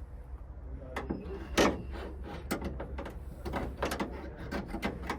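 Irregular clicks and knocks of hand work on the side door of a Chevy Express van, small parts clicking and tapping against the door, with one louder knock about a second and a half in.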